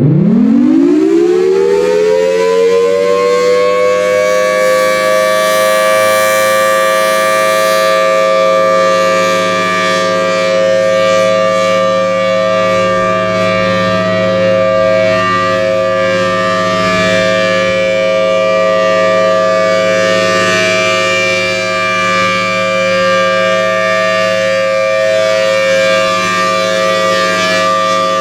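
Federal Signal Thunderbolt 1000T outdoor warning siren winding up, its pitch rising over about three seconds, then holding a steady, loud two-note chord: the steady alert signal of a tornado drill siren test.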